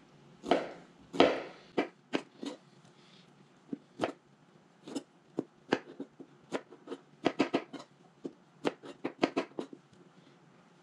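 Chef's knife dicing fresh pineapple on a plastic cutting board: irregular knocks of the blade striking the board, with two longer, louder cuts near the start and a quicker run of taps about seven to nine and a half seconds in.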